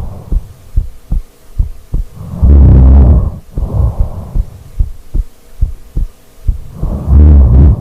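Loud, rough snoring: a long snore about two and a half seconds in and another near the end, each followed by a shorter, softer one. Short, faint low thumps fall in the pauses between.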